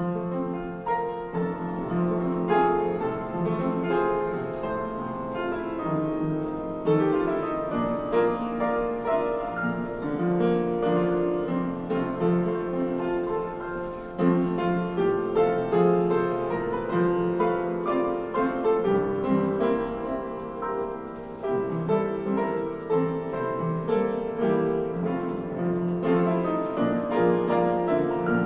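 Piano music that comes in right at the start and plays on through, with sustained notes and chords.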